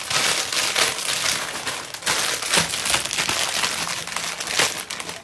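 Foil-lined plastic snack bag crinkling with many sharp crackles as it is handled.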